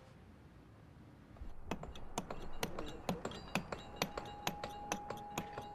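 Stonemasons' hand tools tapping and clinking on stone: an irregular series of sharp clicks with a slight ring, about two or three a second, beginning about a second and a half in.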